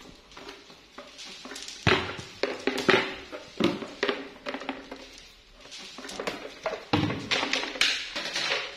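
Plastic chair dragged and knocked along a tiled floor: a run of irregular scrapes and knocks.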